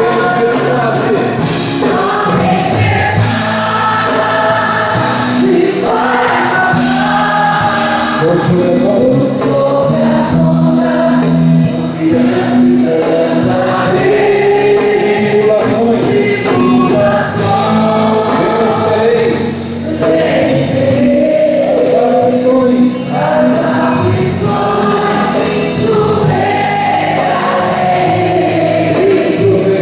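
A group of voices singing a Christian worship song together, with musical accompaniment and a steady beat.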